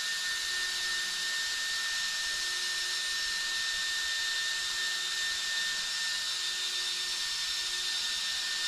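Steady high electric whine with an even fan-like hiss from the Cross RC XX10 T-Rex's electronics, both motors powered up but not yet throttled.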